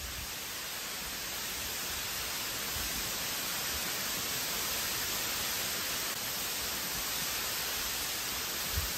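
A steady, even hiss, with a faint low thud near the end.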